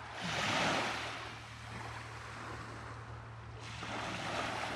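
Ocean surf washing onto a beach. A wave swells in about half a second in and fades away, and a second one builds near the end.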